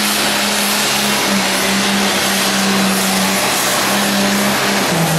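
Diesel engine of a John Deere pulling tractor at full throttle under heavy load, dragging a weight-transfer sled. It gives a loud, steady engine note with a rushing haze over it, and the pitch steps down slightly near the end as the engine is pulled down.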